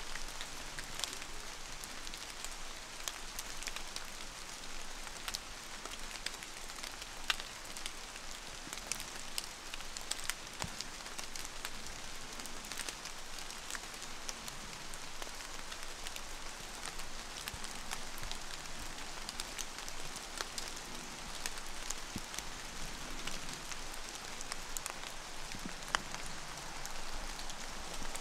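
Light rain falling on leaves and the forest floor: a steady hiss dotted with many small scattered drips.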